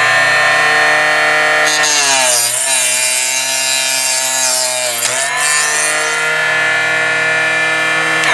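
Small electric benchtop cutoff saw (Drillmaster 120-volt 2-inch) running at speed, its motor slowing under load as the blade cuts through a brass cartridge case, with a scraping noise over the hum. About five seconds in it is through the cut and speeds back up, then it is switched off at the very end, its pitch falling.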